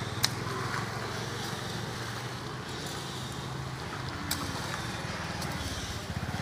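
Auto-rickshaw engine idling with a steady low pulsing hum. A couple of sharp clicks stand out, once near the start and again about four seconds in, as a shovel strikes into the rubbish heap.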